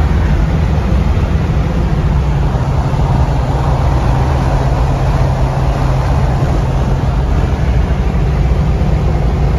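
Steady engine drone and road noise inside a car's cabin at highway cruising speed, with a constant low hum.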